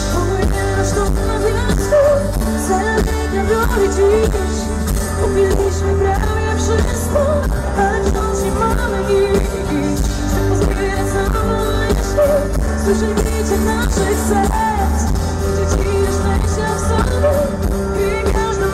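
Live pop band music with grand piano and electric violin, a woman's voice singing and a heavy, booming bass, recorded from the audience.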